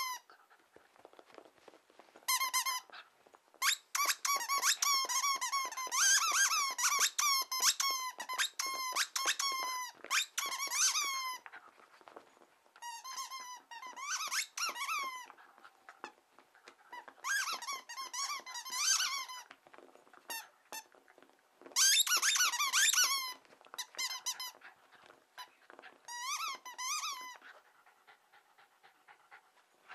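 A Jack Russell Terrier chewing a plush squeaky toy, setting off quick runs of high squeaks that wobble in pitch, with short pauses between the runs. The squeaking stops near the end.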